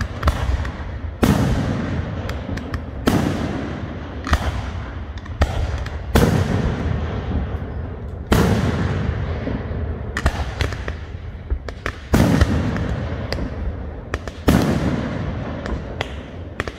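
Aerial firework shells bursting one after another, a loud bang every second or two, each followed by a long rumbling echo that dies away, with smaller sharp pops in between.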